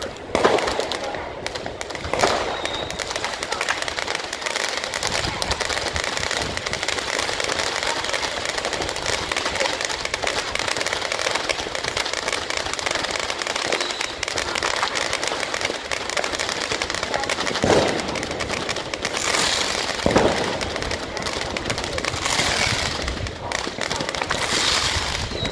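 Fireworks going off in a dense, unbroken crackle, with a few louder bangs scattered through it.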